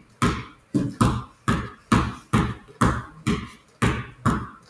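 Basketball dribbled on a hardwood floor in a steady rhythm, about two bounces a second, as it is passed back and forth between the legs from hand to hand.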